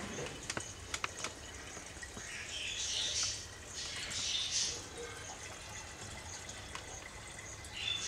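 Water running through a YF-S403 flow sensor at about 8.5 litres a minute, swelling louder twice around the middle. A few sharp clicks near the start.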